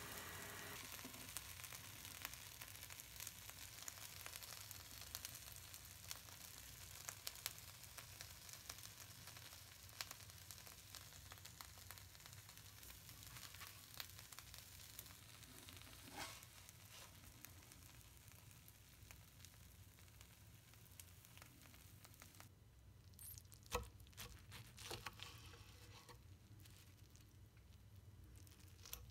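Cabbage wedges in egg and tomato sauce sizzling softly in a frying pan, a faint hiss with fine crackles. About three-quarters of the way through the sizzle stops, and a few light clicks and one sharp knock follow.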